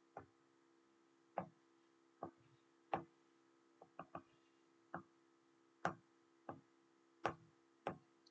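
Faint, irregular light taps of a stylus on a tablet screen, about a dozen short clicks spaced roughly half a second to a second apart, over a faint steady hum.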